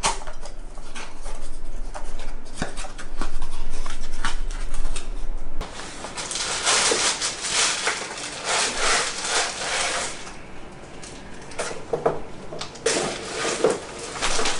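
Cardboard box being opened by hand, its flap scraping and clicking, then a plastic wrapping bag crinkling and rustling in uneven bursts as the packed tripod is unwrapped.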